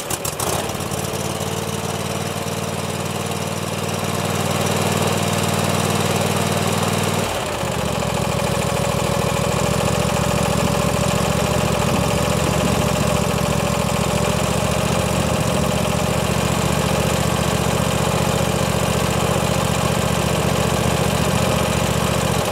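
Kohler lawn tractor engine running steadily just after an oil and filter change, pumping oil into the new, empty filter. Its note shifts a little about seven seconds in.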